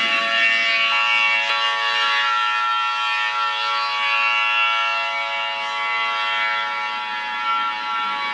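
Steady siren-like alarm sound: several tones held at a constant pitch over a hiss, with further tones joining about a second in.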